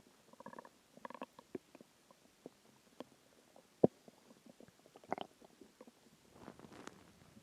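Human stomach gurgling and rumbling while digesting a very large meal: a string of irregular soft gurgles and squelches, a few of them briefly pitched. A sharp pop about four seconds in is the loudest sound.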